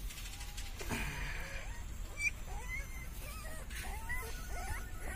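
Very young puppies whimpering and squeaking in short, high cries that rise and fall, several a second, starting about two seconds in.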